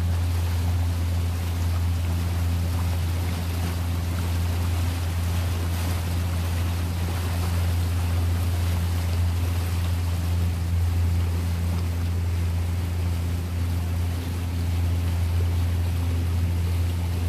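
A boat's motor running steadily, a low even hum, with water and wind noise over it.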